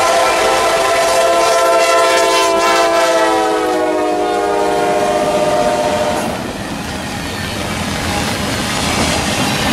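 Lead CSX SD70MAC locomotive's air horn sounding several tones at once in one long blast. Its pitch drops as the locomotive passes, and it stops about six seconds in. After that comes the steady rumble of the double-stack intermodal cars rolling by on the rails in heavy rain.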